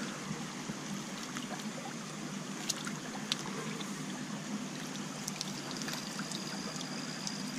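Shallow creek water running steadily over rocks, with a few faint clicks near the middle.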